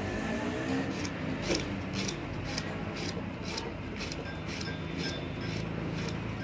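Rhythmic rubbing and scraping strokes, about two a second, as the moving contact strip of a motor starter is cleaned, with faint background music.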